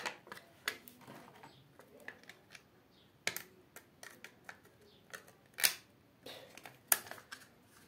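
Plastic insulation paper being cut and handled: scattered sharp snips and clicks, three of them louder, about three, five and a half and seven seconds in.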